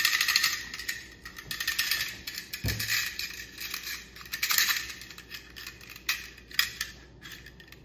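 Steel magazine spring jingling and scraping as its coils are worked by hand into a polymer Glock 33-round extended magazine body: a rattle of small metallic clicks, with a single dull knock about two and a half seconds in.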